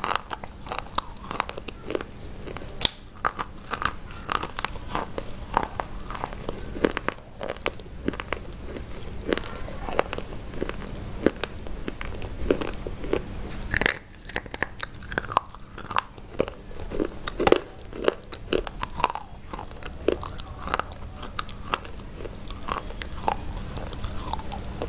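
Close-mic biting and chewing of a stick of white chalk: a dense run of sharp crunches and snaps, with chewing between bites.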